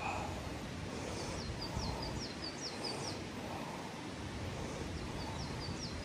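A small songbird singing a quick phrase of short high notes, about a second in and again near the end, over the steady rush of a small mountain stream.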